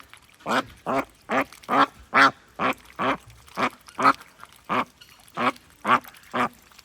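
Duck quacking over and over in a steady run of short quacks, about two a second.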